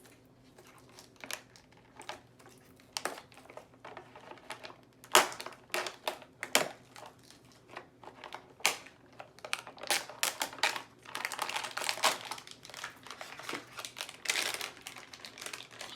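Plastic wrapping of a mystery toy packet crinkling and crackling in irregular sharp bursts as it is handled and opened by hand.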